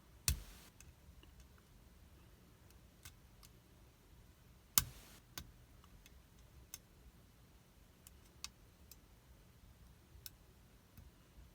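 Light metallic clicks and ticks of a shallow hook working the pins of a TypeRegal Papyrus Jr. challenge lock, irregular and sparse, with two sharper, louder clicks about a third of a second in and about five seconds in.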